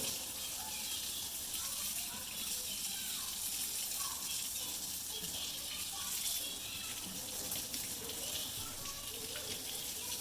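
Faucet running cold water into a sink, a steady hiss.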